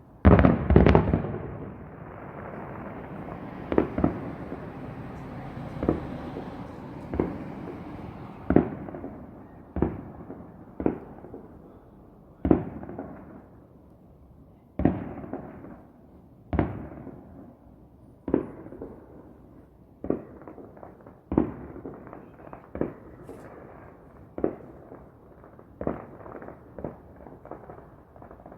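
Aerial fireworks shells bursting one after another: a dense flurry of bangs at the start, then single sharp bangs about every one to two seconds, each dying away over a second or so.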